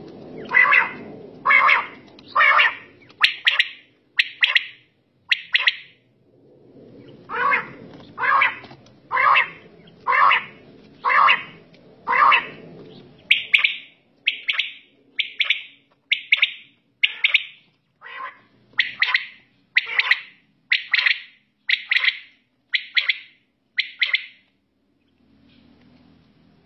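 Several caged quails (batair) calling together, a steady run of short sharp calls about once a second. Some calls are fuller and some higher and thinner, with brief pauses between runs.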